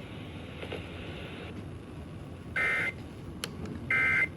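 Emergency Alert System end-of-message data tones over FM radio: two short bursts of the two-tone digital SAME squawk, a bit over a second apart, over faint static hiss. They mark the end of the alert.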